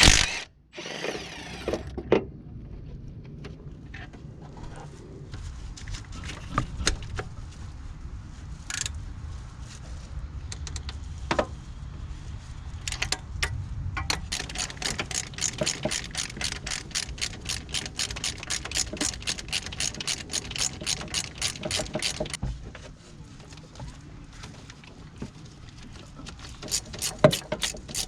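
Ratchet wrench clicking quickly and evenly, about five clicks a second, in a long run from about halfway through and again near the end, with scattered clinks of tools and metal parts before it.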